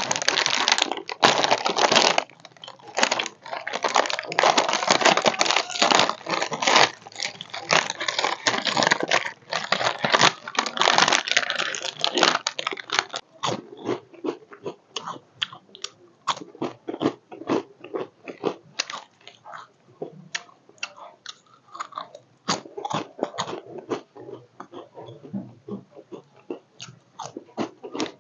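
Plastic snack packet torn open and crinkled, a dense continuous crackle, then from about halfway crunchy ring-shaped snacks bitten and chewed close to the microphone in sharp separate crunches.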